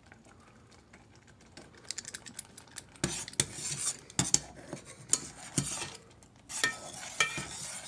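A utensil stirring thick, hot chow mein sauce in a stainless steel saucepan: scattered clinks and scrapes against the pot, starting after a quiet second or so and heaviest in the middle, then a hissing sizzle with a few metallic clinks near the end.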